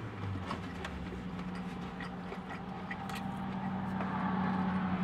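Chewing a breaded fried chicken tender with the mouth closed: faint, scattered soft crunches over the steady low hum inside a car.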